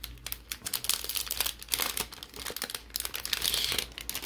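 Foil Pokémon booster pack wrappers crinkling and crackling irregularly as hands handle and shuffle the sealed packs.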